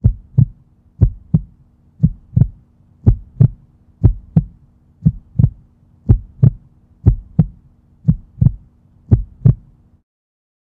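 Heartbeat sound effect: slow, steady double thumps (lub-dub) about once a second, ten beats in all, over a low steady hum, cutting off suddenly near the end.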